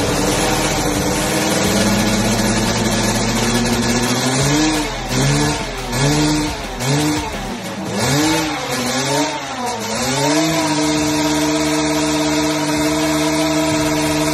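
Motorcycle engine held at high revs while the rear tyre spins in a burnout. It is then blipped up and down about six times and settles into a steady idle.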